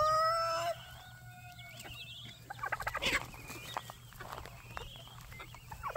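A rooster crowing, its long held last note breaking off under a second in, followed by quieter clucks and short chirps from a flock of chickens.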